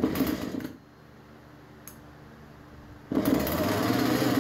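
Husqvarna 440 chainsaw: one pull of the recoil starter cord, then about three seconds in the two-stroke engine catches and runs loudly, its speed wavering up and down.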